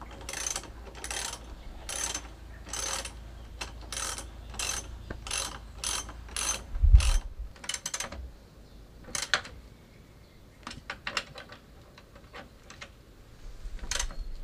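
Hand socket ratchet clicking in repeated short strokes as a muffler mounting bolt is tightened, about one to two strokes a second for the first seven seconds, then slower and scattered. A dull knock comes about seven seconds in.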